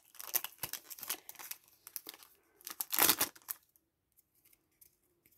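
Foil wrapper of a Pokémon card booster pack crinkling and tearing as the cards are pulled out, in scattered rustles with one louder crackle about three seconds in.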